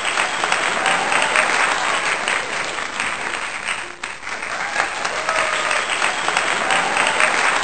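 Large audience applauding: dense, steady clapping that dips briefly about four seconds in.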